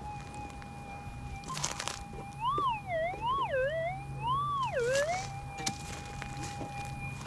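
Minelab GPX 6000 gold detector's audio: a steady threshold tone that, a couple of seconds in, swings up and down in pitch three times before settling back to the steady tone. A few brief knocks can also be heard.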